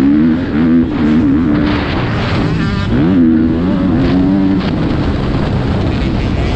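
Motocross bike engine revving hard, its pitch climbing sharply twice about three seconds apart and holding between, then fading into a rougher rumble about four and a half seconds in.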